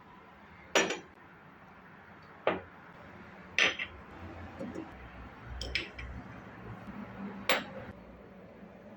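Dishes and utensils being handled: about half a dozen sharp clinks and knocks at irregular intervals.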